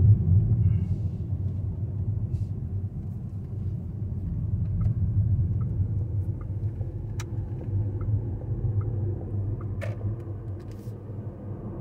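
Steady low road and tyre rumble inside the cabin of a VW ID.3 electric car driving along, with no engine note. A few faint short ticks, about two a second, come through in the middle.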